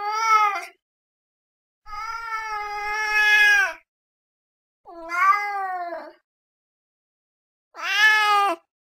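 Domestic cat meowing: the tail of one meow, then three more, the first of them long and drawn out for about two seconds, the others shorter, with pauses of a second or so between.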